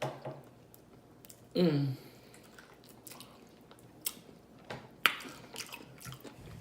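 Close-up eating sounds: chewing and lip-smacking in scattered short clicks and wet smacks. About one and a half seconds in comes a short, loud, low vocal sound that falls in pitch.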